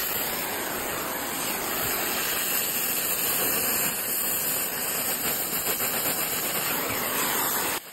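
Brazing torch flame hissing steadily on copper refrigerant line joints, then cutting off abruptly near the end.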